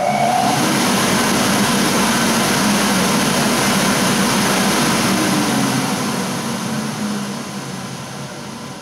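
A 2.2 kW centrifugal dust-collector blower from a Corvette 66 chip extractor, having just been switched on, running at full speed with a loud, steady rush of air. From about six seconds in it fades away as the fan winds down.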